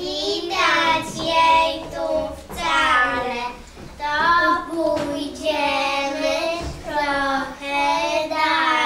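A child singing a song in phrases of held notes, with short breaths between them.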